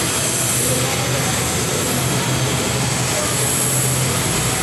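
Twin-engine jet airliner's engines running: a steady rushing noise with a high whine above a low hum.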